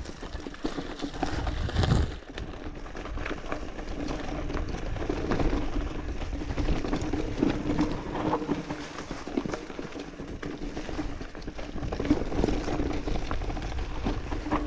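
Mountain bike ridden along a rocky dirt singletrack: tyres rolling and crunching over dirt and stones, with frequent rattles and knocks from the bike over the bumps and a low rumble throughout.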